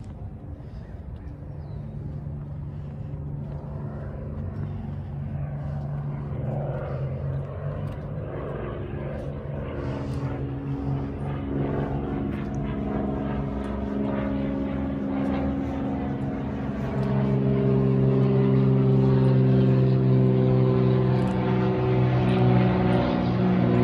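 Engine drone of a small propeller plane: several steady pitched tones that grow louder throughout, with a further rise in level about two-thirds of the way in as it comes closer.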